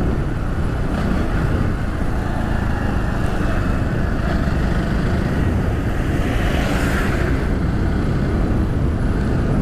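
Steady engine and road noise from a vehicle driving along a road, heavy in the low end. A rushing sound swells and fades about seven seconds in.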